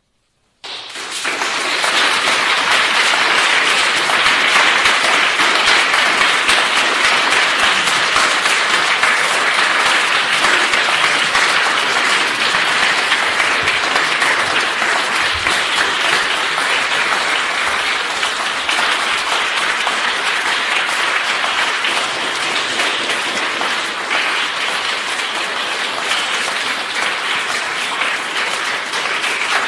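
Audience applauding, breaking out suddenly from silence about half a second in and keeping up steadily.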